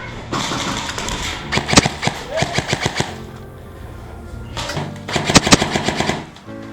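Airsoft guns firing two rapid bursts of shots, each about a second long, the first about a second and a half in and the second about five seconds in.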